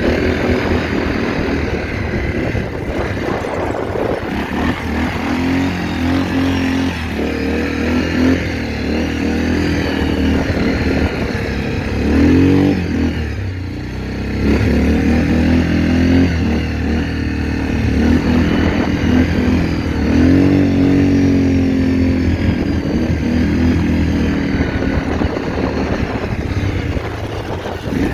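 ATV engine running under load as the quad is ridden, the engine note rising and falling repeatedly with throttle, easing off briefly about halfway through.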